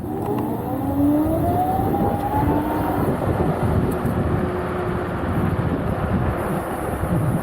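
Kaabo Wolf Warrior 11+ electric scooter's dual hub motors whining as it accelerates, the whine rising in pitch for about three seconds and then holding steady, over rushing wind and road noise.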